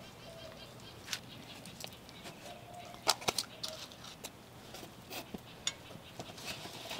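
Soft rustling and scattered light taps of corn tortillas and parchment paper being handled and laid into a cast-iron Dutch oven, with one sharper click about three seconds in.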